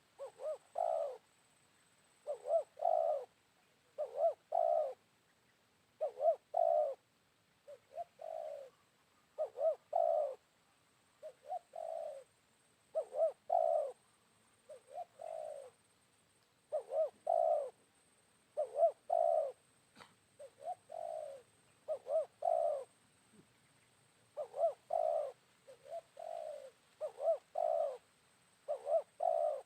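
Spotted dove cooing over and over: short phrases of two to four throaty coo notes, repeated every second or two with brief gaps.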